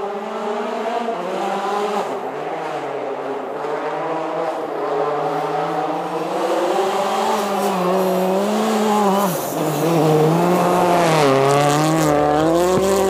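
A held, slowly wavering melodic tone with several pitches stacked together, dipping and rising in long glides and getting louder. It sounds like an engine note shaped into a tune, or a sung line. About twelve seconds in, a low rumble and a rush of noise join it.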